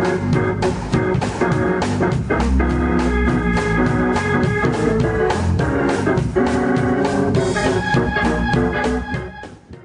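Organ-led music with sustained chords over a strong bass, fading out near the end.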